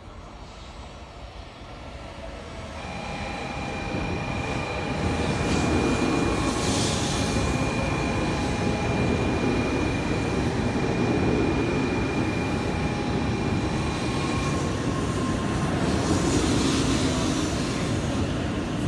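N700-series Shinkansen train pulling into a station: the rumble of wheels and running gear builds over the first few seconds and stays loud as the cars run past. A steady high-pitched whine runs with it from about three seconds in until about fifteen seconds in.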